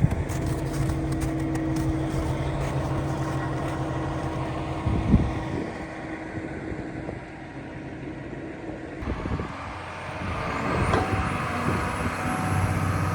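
Deere 350D excavator's six-cylinder diesel engine running steadily, with a sharp thump about five seconds in; the engine note drops back for a few seconds and comes up steady again near the end.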